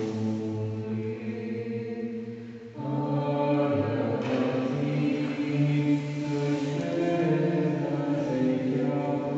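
A slow hymn sung in long held notes, with a brief pause between phrases about three seconds in.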